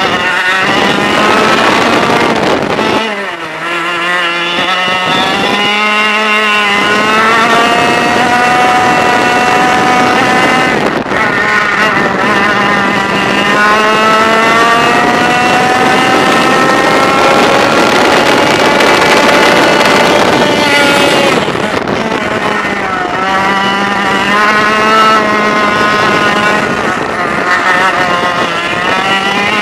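100cc two-stroke racing kart engine heard from on board at racing speed. Its pitch drops sharply about three seconds in, climbs steadily for many seconds, drops again around twenty-two seconds and climbs once more, with wind rushing past.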